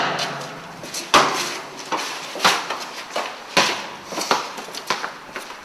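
A leather football being kicked and headed repeatedly: a string of sharp thumps roughly once a second, each echoing off the walls of a concrete underpass.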